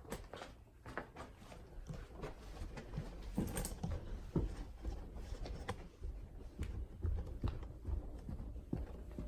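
Footsteps hurrying up a flight of stairs: irregular thumps and knocks, about one or two a second.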